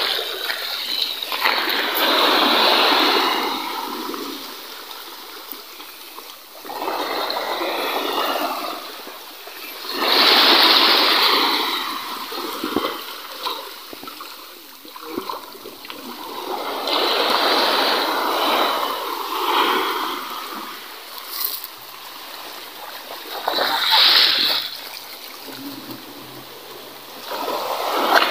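Small waves washing in over a pebble-and-rock shore, a rushing hiss that swells and fades every few seconds.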